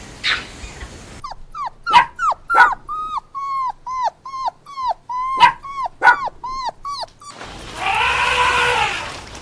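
A dog whimpering: a rapid series of short, high whines with a few sharp yips among them. Near the end comes one longer, hoarse animal call.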